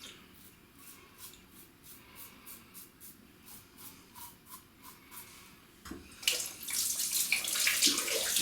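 Merkur 34C safety razor scraping through oiled stubble in short, quick strokes, about three a second. About six seconds in, a hot water tap opens and runs hard into the sink to rinse the oil from the razor head.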